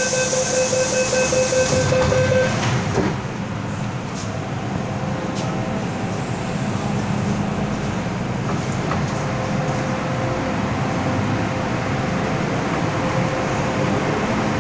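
MTR M-Train electric multiple unit at a station. A steady door-closing warning tone sounds over a hiss for the first two seconds or so, and the doors shut at about three seconds. The train then pulls away, with a steady rumble of motors and wheels as it picks up speed.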